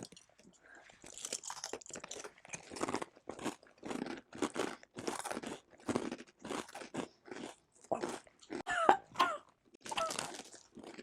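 Crunching and chewing of a mouthful of wasabi rice crackers, crackly bites several times a second. A short voiced sound breaks in about nine seconds in.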